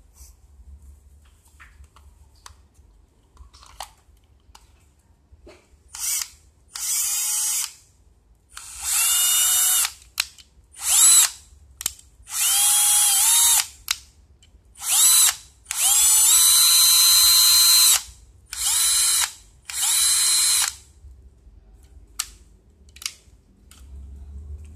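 Bosch cordless drill's motor spinning up and running in about nine short trigger pulls, each starting with a quick rising whine, the longest about two seconds. Light clicks from handling come before the first run. The drill is being test-run on its battery pack, rebuilt with a salvaged laptop lithium-ion cell.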